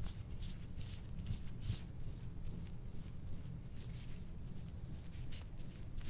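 Metal soft-tissue scraping tool stroking across oiled skin on the back: a series of short swishing scrapes, about two a second, over a low steady hum.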